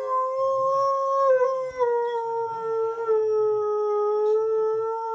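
A young husky-malamute mix dog howling: one long howl that drops slightly in pitch a couple of times.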